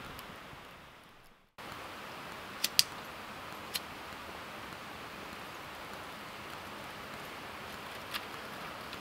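A steady outdoor hiss fades to near silence in the first second and a half, then comes back with a few sharp clicks and snaps, the loudest two close together about three seconds in, as dry twigs are handled and fed into a stainless steel fire pit.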